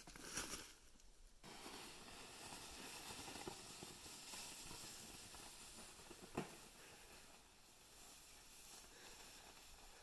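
Near silence: faint outdoor hiss in snowy woods, with one short soft tap about six seconds in.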